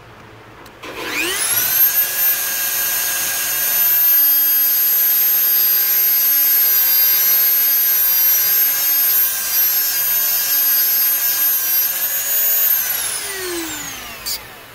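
Dremel rotary tool with a cut-off wheel spinning up about a second in to a steady high whine while cutting into the steel breakaway bolt of the ignition assembly, then winding down with a falling pitch near the end. A short click follows just before the end.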